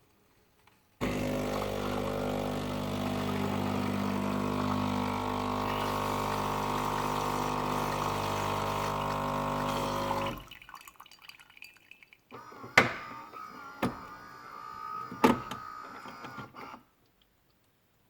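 Saeco Xelsis super-automatic coffee machine's pump running steadily with a hum for about nine seconds, then stopping. Quieter water sounds follow, with three sharp clicks.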